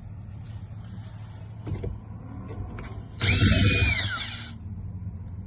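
Cordless power drill running once for just over a second, its motor whine falling in pitch as it slows, while a lock is being unscrewed. A steady low hum runs under it, with a few light clicks.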